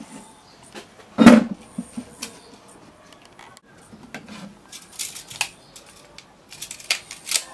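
Steel tape measure being handled on a sheet of plywood: a knock about a second in, then a scatter of small metallic clicks and rattles from the tape blade and case.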